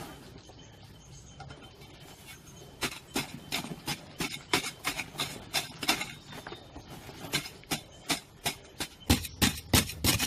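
Repeated sharp strikes of a hand digging tool into soil, irregular at about two to three a second. They start about three seconds in, and the loudest strikes come near the end.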